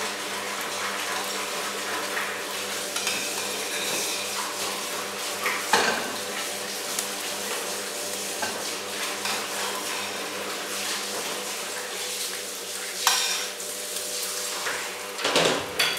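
A metal fork scraping and clinking against a frying pan on a gas stove, with food sizzling in the pan. There are a few louder clanks, the loudest near the end.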